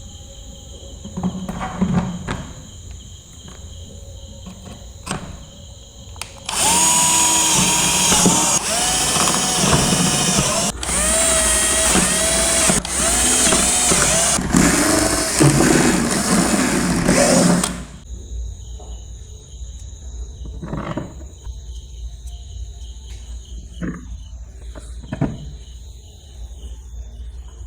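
Electric drill running for about eleven seconds in several runs, its pitch dipping and recovering as it bites. Light taps and clicks of handling parts come before and after it.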